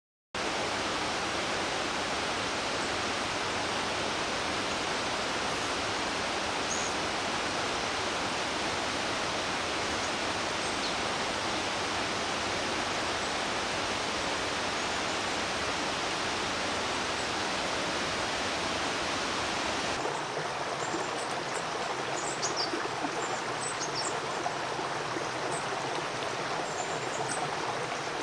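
A river rushing steadily. About two-thirds of the way in the water noise becomes lighter, and short, high calls of small birds from a mixed tit flock come in repeatedly.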